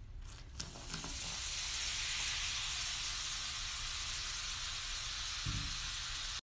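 Vinegar fizzing on baking soda packed into a clogged shower drain: a steady high hiss that builds about a second in.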